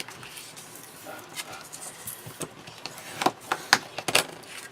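Paper and crafting tools handled on a tabletop: a scattering of light taps and clicks, more of them in the second half.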